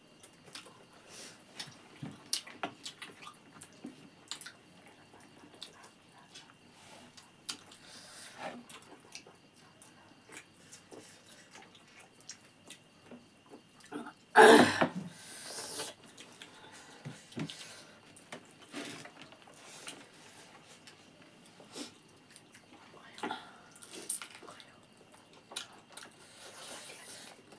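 Close-up eating sounds of two people eating rice and chicken curry by hand: wet chewing, lip smacks and many small clicks, with one louder burst about halfway through.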